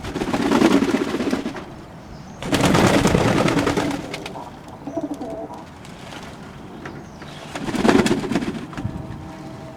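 Fantail pigeons cooing in three bouts of about a second each: at the start, about two and a half seconds in, and near eight seconds.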